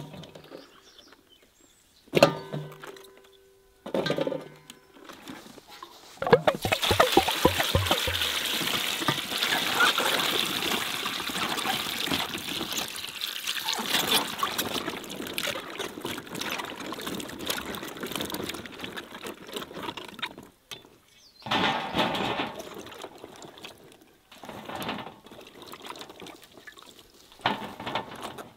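Bell peppers dropped into an enamel basin, landing with short clunks, two of which ring. Then, about six seconds in, water pours steadily into the basin for about fourteen seconds, followed by a few shorter splashing bursts as the peppers are handled.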